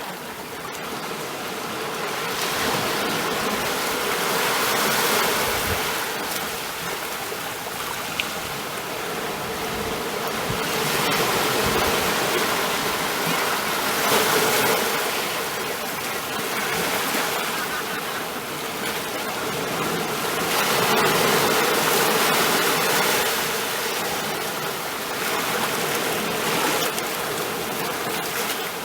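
Ocean waves washing in continuously, the surf noise swelling and easing every several seconds.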